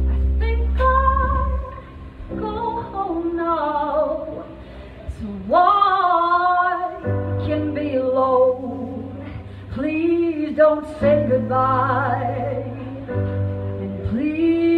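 A woman sings a slow melody live, holding long notes with vibrato, over sustained keyboard chords and low held bass notes.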